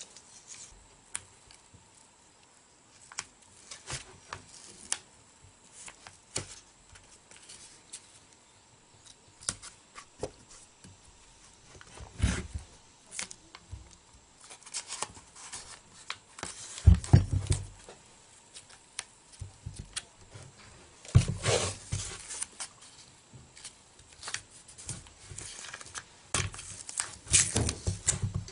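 Masking off a pipe wrench for paint: tape being pulled and torn in short, scattered bursts, with clicks and rustling from handling. The loudest bursts come about halfway through and again near the end.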